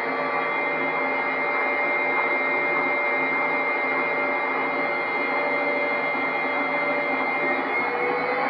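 Candy washing machine on its spin cycle, the motor and drum giving a steady whine over a rushing noise; near the end the pitch begins to rise as the drum speeds up.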